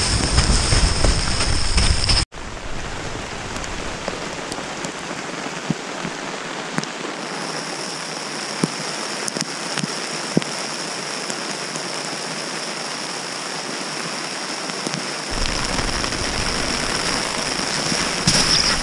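Steady hiss of rain and hail falling, with occasional sharp ticks of single hailstones striking. The sound cuts out for an instant about two seconds in, and a low rumble comes in again about fifteen seconds in.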